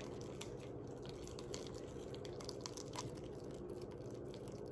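A spoon stirring sticky glue slime that is starting to clump in a bowl: faint scattered squelches and light ticks of the spoon against the bowl.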